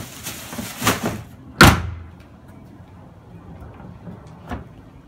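A plastic bin bag rustling as it goes into a plastic wheelie bin, then the bin's plastic lid slamming shut with one loud thud about a second and a half in. A lighter knock follows near the end.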